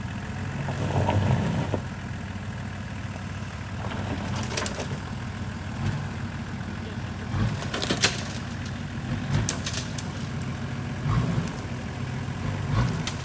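Nissan Patrol 4x4's engine running at low revs as it crawls down a steep earth bank, swelling now and then as the throttle is pressed. Sharp knocks and clunks from the tyres and body working over the ground, the loudest about two-thirds of the way through.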